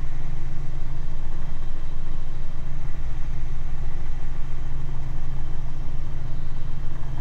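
Robinson helicopter in cruise flight, heard from inside the cabin: a steady, unchanging low drone of rotor and engine.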